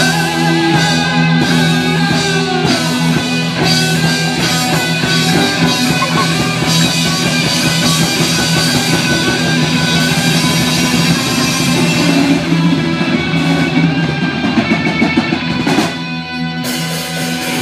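Live rock band playing through a PA: electric guitar and bass over a drum kit, with a brief dip in the music near the end.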